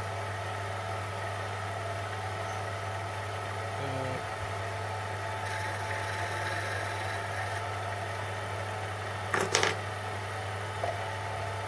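Small metal lathe running with a steady motor hum and whine while a steel spindle is turned down. A short sharp rattle breaks in near the end.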